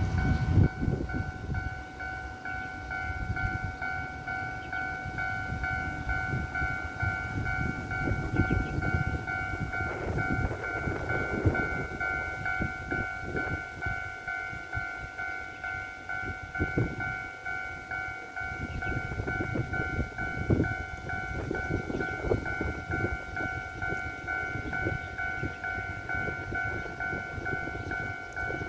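Railway level-crossing warning bell ringing continuously in a rapid repeated tone, with loud wind buffeting the microphone.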